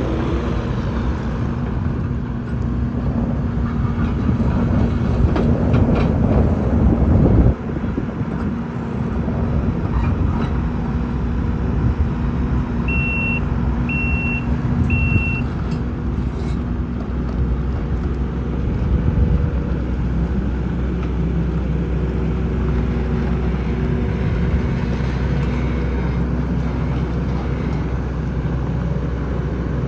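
A farm machine's engine running steadily, dropping abruptly in level about seven seconds in. Around the middle, its reversing alarm beeps three times, about once a second.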